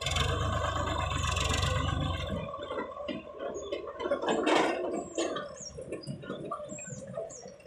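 Sonalika 750 tractor engine running loud and steady for about the first two and a half seconds, then falling away to a lower rumble. In the second half, birds chirp in short high calls.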